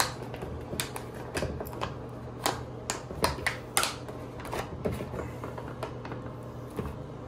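Plastic front cover of an EnMotion automated touchless soap dispenser being pushed shut by hand: about a dozen irregular sharp clicks and knocks as the cover is pressed and meets resistance before it latches.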